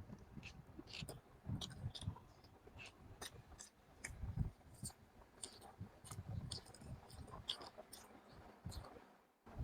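Close-miked chewing: a mouth eating chicken, with many small irregular wet clicks and smacks and soft low thuds of the jaw.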